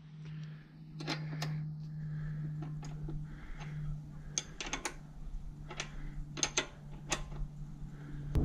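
Hand tools and metal fittings clicking and clinking irregularly, about fifteen light knocks, over a steady low hum.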